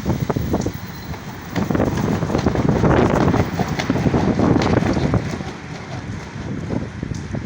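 Wind buffeting the microphone with a low rumble, rising and falling in gusts.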